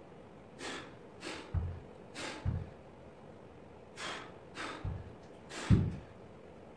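A person exercising takes sharp, forceful breaths, about six in quick succession, during renegade-row push-ups. Four dull low thuds come in between as the dumbbells are set back down on the floor mat; the loudest is a little before the end.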